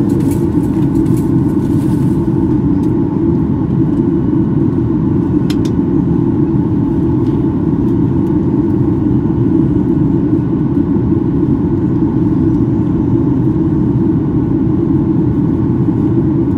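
Steady cabin roar of a Boeing 737-900 in flight on descent, heard from a seat over the wing: engine and airflow noise, with a few faint steady whining tones above it.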